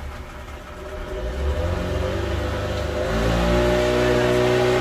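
A boat's outboard motor running, then revving up about three seconds in, its pitch rising slightly.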